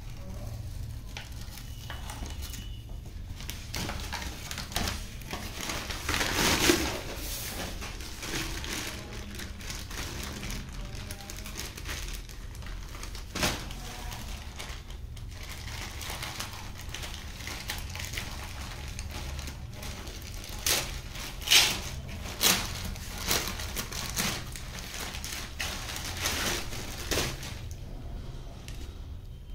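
Paper courier bag and plastic wrapping crinkling and rustling as they are handled and torn open, with a louder burst of crackling about a quarter of the way in and several more late on.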